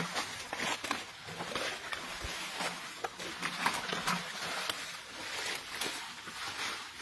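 Leaves and undergrowth rustling and crackling, with scraping and rubbing as the phone brushes right against an elephant's skin; many small snaps and crackles throughout.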